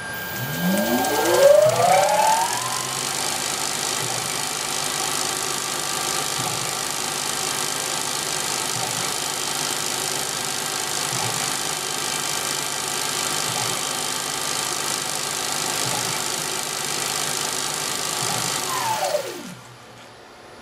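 Small CNC lathe spindle motor spinning up with a rising whine over about three seconds, running steadily at speed, then winding down and stopping near the end.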